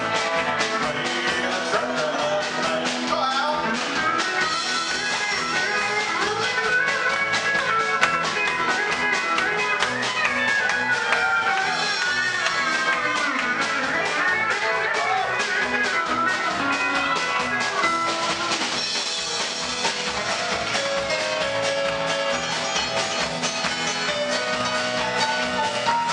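Live Bakersfield-style country band playing an instrumental passage: Telecaster electric guitar, Sho-Bud pedal steel guitar and keys over a steady beat, with sliding notes in the middle.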